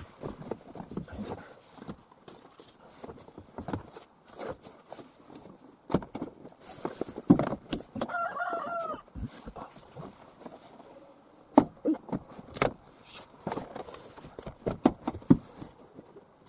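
Plastic interior door trim panel being handled and pressed onto a minivan's sliding door: scattered knocks, taps and clip clicks, with two louder knocks about seven and eleven and a half seconds in. A short wavering high call sounds about eight seconds in.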